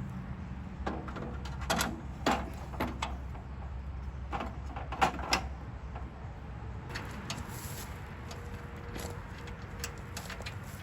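Scattered knocks and clinks of tools and metal parts being handled during reassembly of a chipper/shredder, the loudest in the first half, over a low steady hum.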